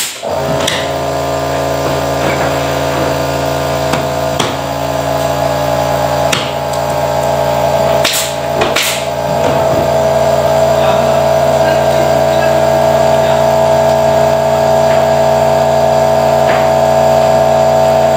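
Workshop air compressor running steadily, a constant mechanical drone that cuts in right at the start and cuts off sharply at the end. A few short knocks come from the laminate sheet and panel being handled.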